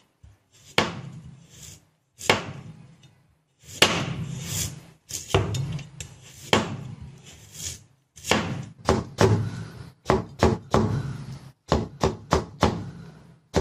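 Knife slicing through a green radish and knocking on a wooden cutting board, one cut at a time, then a cleaver cutting the slices into thin strips. The cuts come quicker in the second half.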